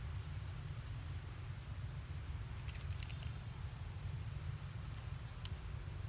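Outdoor background noise: a steady low rumble with a faint hiss, and a few faint clicks about three seconds in and again near five and a half seconds.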